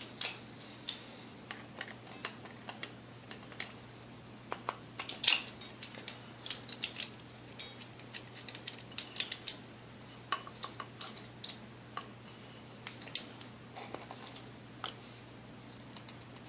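Scattered small clicks and taps of hand tools working on the metal parts of a vintage Hamilton Beach Model D mixer during disassembly, with one louder click about five seconds in.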